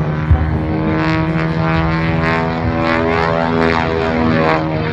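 Aerobatic biplane's propeller engine running as it dives overhead trailing smoke: a steady pitched engine note with many harmonics.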